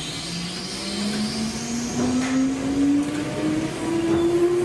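Traction motors of a Jōmō Electric Railway train, a former Keio Inokashira Line car, whining as it accelerates away, the pitch rising steadily throughout, over running noise from the wheels and car body.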